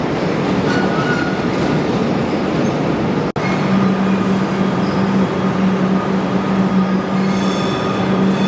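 Train running on the rails: a loud, steady rumble with a constant hum, broken by a sudden drop-out about three seconds in before it carries on.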